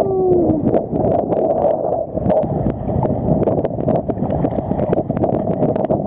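Choppy seawater sloshing and splashing against a camera at the water's surface, with wind on the microphone, a dense rushing wash full of small splashes and clicks.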